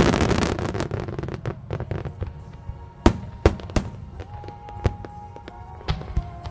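Fireworks display: a dense crackling barrage fading away over the first second or so, then single sharp bangs of shells bursting, first about three seconds in and a few more after, with music playing underneath.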